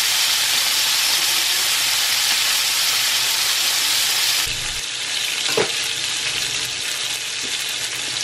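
Beef burger patties sizzling in their fat on the ridged plate of an electric grill, a steady frying hiss. The hiss drops a little in level about four and a half seconds in, and a brief pop comes a second later.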